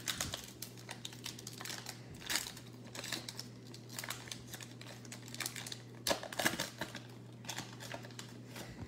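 The wrapper of a retail baseball card pack crinkling and crackling in irregular ticks as it is torn open by hand and the card stack is slid out, over a low steady hum.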